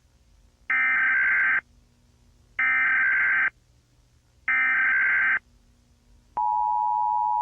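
Emergency Alert System header: three identical bursts of warbling digital data tones, each just under a second long and about a second apart, followed about six seconds in by the steady two-tone EAS attention signal.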